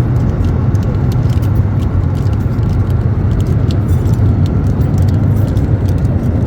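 Steady cabin noise of an Airbus A320neo-family airliner in flight: a loud, even low rumble of engines and airflow, with faint light rattles and clicks of cabin fittings.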